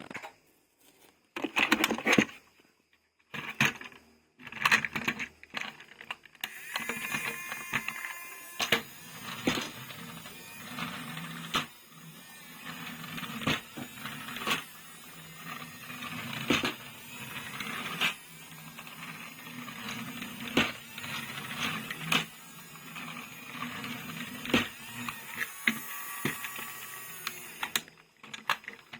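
Plastic toy vehicles and their packaging being handled and unwrapped: frequent sharp clicks and taps, with continuous crinkling plastic from about six seconds in.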